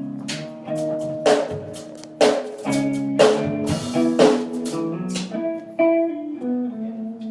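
Band instruments played live: a drum kit striking hits about once a second that ring out, cymbal-like, over sustained guitar notes.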